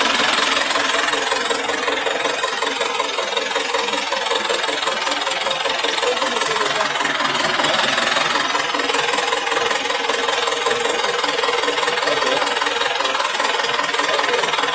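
Water-well drilling rig's engine running steadily at idle, an even, unchanging mechanical noise with a constant hum.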